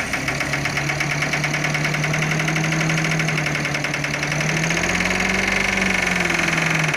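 Heavy dump truck's diesel engine running steadily with a knocking clatter while the tipper bed is raised and the sand load slides out. The engine note rises slightly about five seconds in, then eases back near the end.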